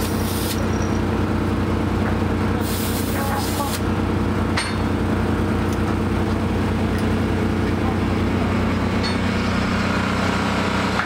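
Short hisses of compressed air as an air chuck is pushed onto the valves of truck tyres being inflated, once at the start and again, longer, about three seconds in, over the steady drone of an engine running.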